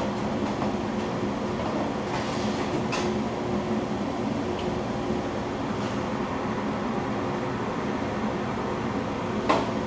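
A fan running steadily: an even rush of air over a low, steady hum. A couple of light clicks come through it, one about three seconds in and a sharper one near the end.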